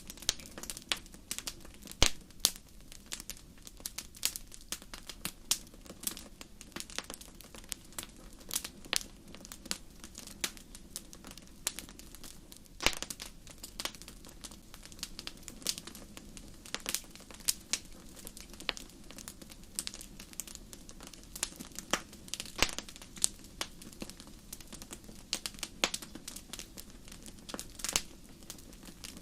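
Wood fire crackling: irregular sharp pops and snaps of burning wood over a low steady rush, the loudest pop about two seconds in.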